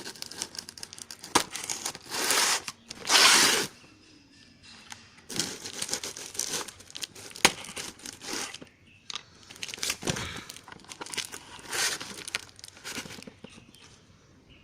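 A shipping package being torn open by hand: packaging and tape ripping in irregular bursts, with crinkling and small clicks between, the loudest rips about two and three seconds in.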